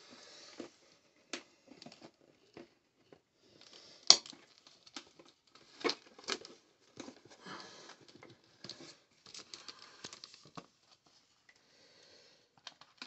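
Plastic RC truck body being handled and pressed down onto its chassis mounts: irregular rustles, taps and light clicks of the shell, with a sharper click about four seconds in and two more around six seconds.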